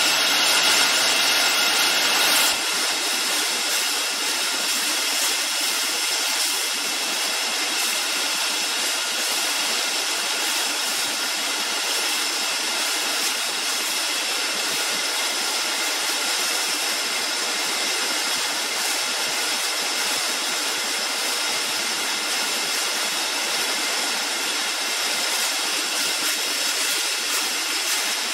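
Steady machinery noise of a three-piece food can production line and its can conveyors: a dense hiss with several steady high whines and no clear rhythm. It drops slightly and thins out in the low end about two and a half seconds in.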